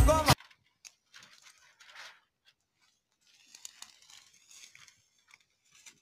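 A song with jingle bells cuts off sharply a moment in. After it come only faint, scattered crunching and rustling sounds of dry grass and earth underfoot.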